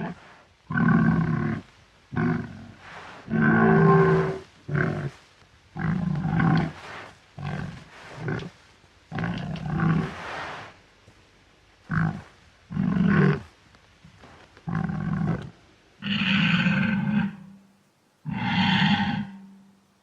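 Wild boar grunting and growling in a long run of harsh calls, each under two seconds, separated by short pauses; the longest calls come near the end.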